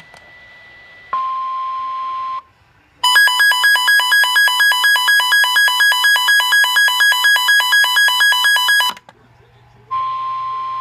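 Electronic Emergency Alert System warning tones. A short steady tone about a second in is followed by a loud pulsing tone, about four pulses a second, lasting some six seconds. The short steady tone comes again near the end.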